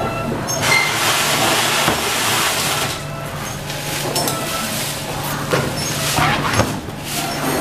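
Plastic packing bags crinkling and rustling in gloved hands, loudest for about two seconds near the start, over a steady low machine hum.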